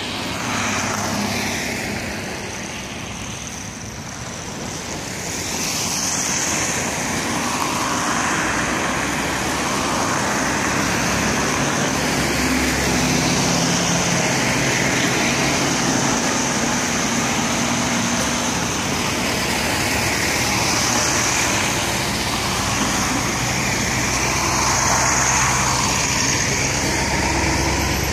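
Road traffic passing on a wet street, cars and trucks hissing by one after another in swells every few seconds. A low engine hum joins about halfway through.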